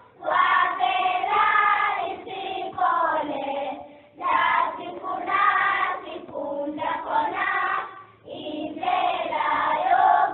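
A choir singing in phrases of about four seconds, with short breaks between phrases.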